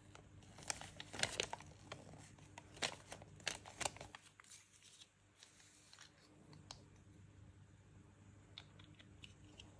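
Thin paper toy leaflet being handled and folded, crinkling in a run of sharp rustles over the first few seconds. A few faint small clicks follow near the end as the small plastic toy is handled.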